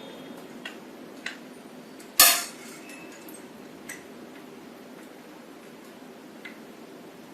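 Light metallic ticks and clinks of tools and small metal parts being handled while a servo-motor assembly is remounted, with one sharp, louder clatter about two seconds in.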